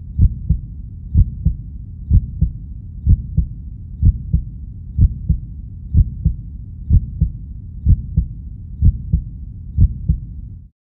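Heartbeat sound effect: paired low thumps, about one beat a second, over a steady low drone, cutting off abruptly near the end.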